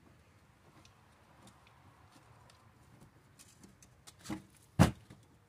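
Hands taking a lawn mower blade off its spindle and shifting the wooden block that wedged it: faint rubbing and handling noise, then two knocks about half a second apart near the end, the second sharp and the loudest.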